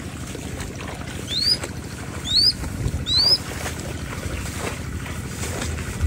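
Three short rising whistled bird calls about a second apart, over wind rumbling on the microphone.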